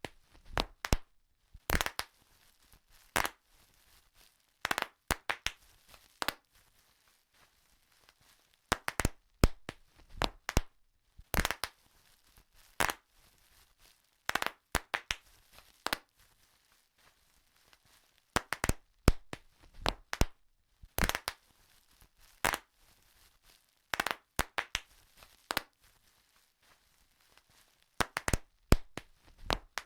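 Bubble wrap bubbles popping one after another: sharp cracks, sometimes several in a quick cluster, at an irregular pace with short pauses between, and a light crinkling of the plastic sheet.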